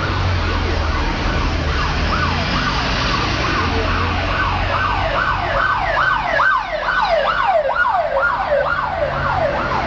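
Emergency vehicle siren sounding a quick, repeated falling sweep, about two to three a second, that grows much louder from about halfway as the vehicle comes closer. A low vehicle engine rumble runs underneath in the first half.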